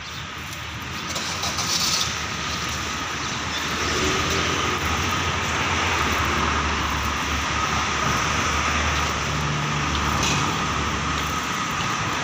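Street traffic: a motor vehicle running steadily with a low hum, swelling over the first two seconds and then holding.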